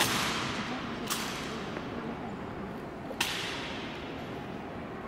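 Honor guard rifle drill: three sharp claps as rifles are handled and struck in unison, the first the loudest, each ringing out in the echo of a stone hall.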